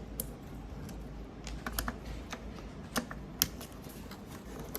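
Scattered light metal clicks and taps of a screwdriver and small screws being handled, irregular, with the two loudest a little past the middle.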